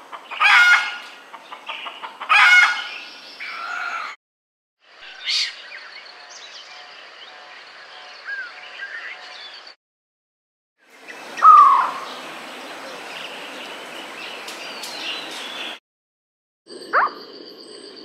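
Grey junglefowl rooster crowing, two loud calls about two seconds apart. After that come separate stretches of other wild birds calling over a steady forest hiss, broken by short silences.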